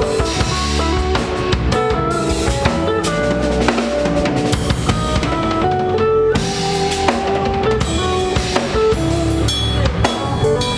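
A band playing with a drum kit, bass drum and snare hits driving a steady beat under sustained pitched instruments.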